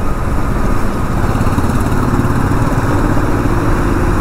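Royal Enfield motorcycle engine running steadily under way.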